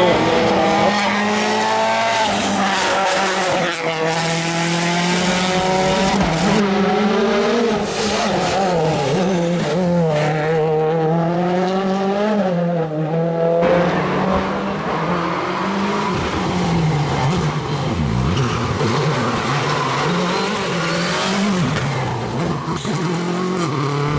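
World Rally Cars with 1.6-litre turbocharged four-cylinder engines driven flat out. The engine note climbs and drops again and again through gear changes. The sound changes abruptly to a second car about 14 seconds in.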